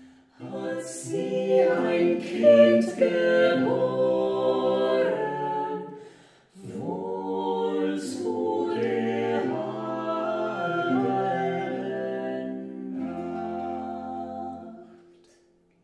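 Unaccompanied choir singing a slow hymn in several parts, in long held chords. The singing breaks off briefly about six seconds in, then resumes, and the last chord dies away near the end.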